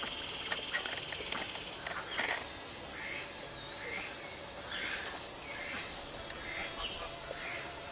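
Soft, scattered calls from a small backyard flock of chickens and ducks, short and faint, about one a second, over a steady high hiss.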